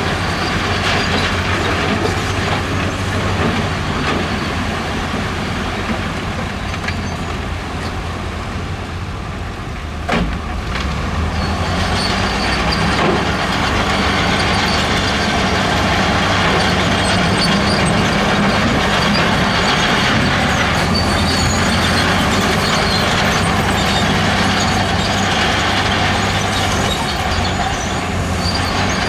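Diesel engine of heavy earthmoving machinery running steadily, with a sharp knock about ten seconds in, after which the engine noise grows louder.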